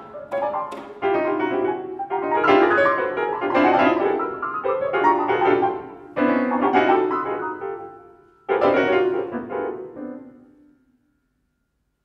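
Contemporary chamber ensemble playing, led by loud piano chords, each struck and left to ring, with held instrument tones between them. The music fades away to silence near the end.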